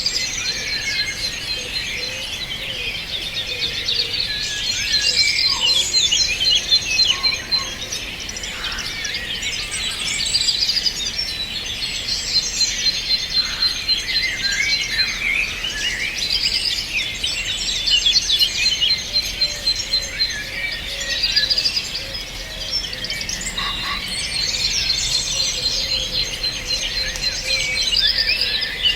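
Many songbirds singing at once, a dense mix of overlapping high chirps, warbles and twitters. A rapid run of even, high repeated notes comes back several times.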